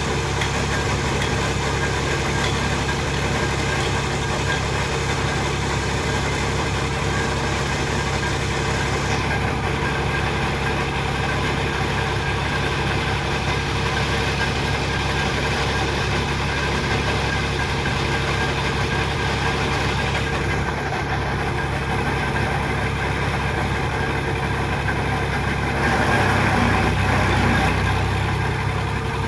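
Engine of piling equipment running steadily, with a louder surge lasting a couple of seconds near the end.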